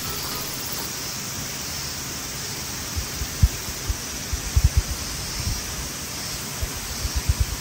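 Steady rushing hiss of a mountain stream flowing. From about three seconds in, a series of short dull low thumps come in small clusters over it.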